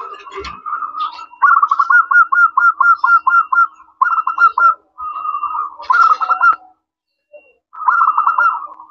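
Zebra dove (perkutut) cooing: several runs of rapid, rolling staccato coo notes, broken by short pauses, with a gap of about a second before the last run near the end.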